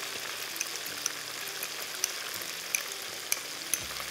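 Breaded chicken fingers frying in hot oil, a steady sizzle with scattered sharp pops and clicks.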